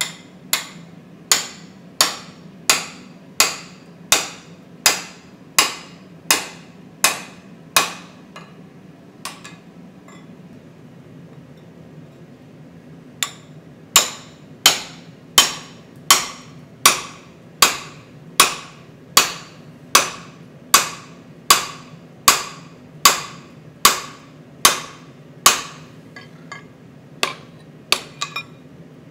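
Hand hammer striking a tapered punch driven into a glowing EN9 steel billet on the anvil, punching the eye of a hammer head: evenly paced, ringing metallic blows about one every 0.7 seconds. A run of about a dozen blows, a pause of several seconds about a third of the way in, then a longer run, with a few lighter taps near the end.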